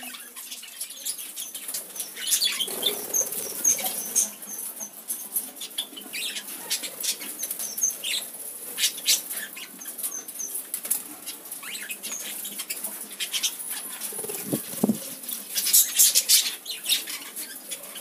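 Budgerigars and a cockatiel fluttering their wings as they perch and shift on hands and corn cobs, with many short sharp clicks and a few brief high chirps. A loud cluster of flutters comes near the end.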